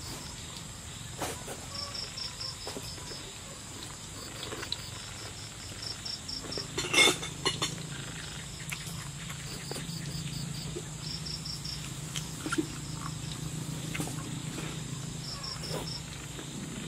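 Crickets chirping in short repeated trills over a steady high insect drone, with a single sharp snap about seven seconds in and a few small clicks and taps.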